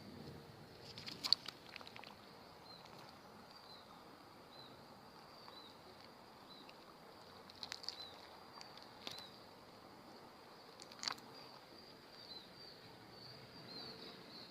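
Faint outdoor ambience of insects: a steady high drone with small chirps repeating over it. A few sharp clicks cut in, a cluster about a second in and single ones around 8, 9 and 11 seconds.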